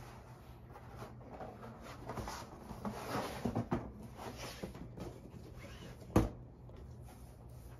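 A large roll of insole leather being handled and unrolled: rubbing, crinkling and flapping of the hide, with one sharp slap about six seconds in as it is laid down.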